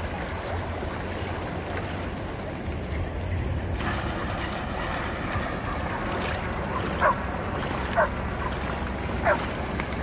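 Dogs running and splashing through shallow seawater over a steady wash of surf, with a low rumble underneath. Near the end, three short dog barks about a second apart.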